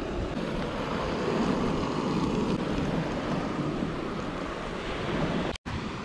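Wind buffeting the microphone over sea surf, a steady rushing noise that drops out for an instant near the end.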